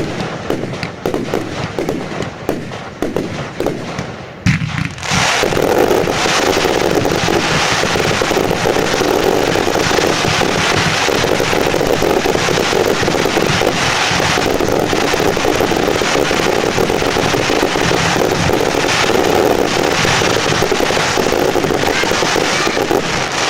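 Fireworks going off: scattered cracks and bangs at first, then a sharp bang about four and a half seconds in, followed by a dense, unbroken barrage of explosions. The barrage cuts off suddenly near the end.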